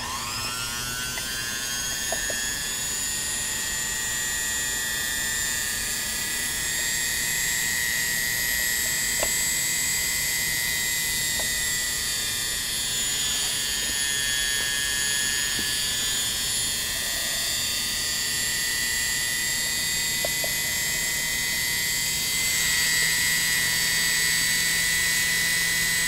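Pfaff 332 sewing machine's electric motor spinning up within about a second, then running steadily at full speed with a high whine, free-running with no pulley or belt on its shaft. It runs quiet and smooth after restoration and tuning.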